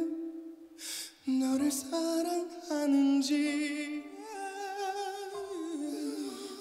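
A man singing a slow Korean ballad line into a microphone, with vibrato on a held note about three seconds in, over a soft sustained backing of voices.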